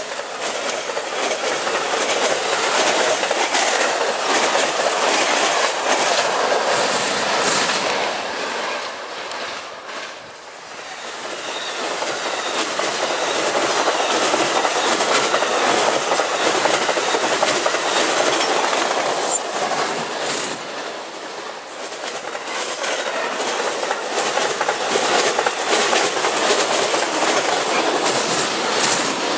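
Amtrak passenger train cars, bilevel Superliners among them, passing close at speed: loud rushing and wheels clattering over the rails. The noise dips briefly about ten seconds in and again a little past twenty.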